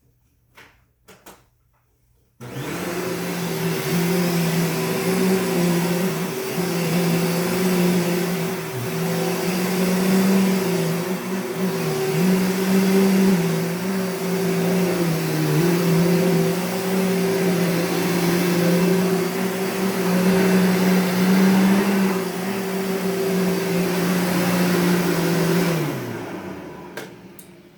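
Dirt Devil Featherlite upright vacuum cleaner switched on a couple of seconds in, after a few clicks, and running a little loud with a steady hum and rushing air, its pitch wavering slightly. It is switched off near the end and winds down.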